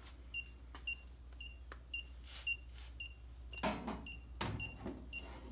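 An electronic device beeping steadily: a short, high beep about twice a second, with a few clicks and a brief rustle of handling partway through.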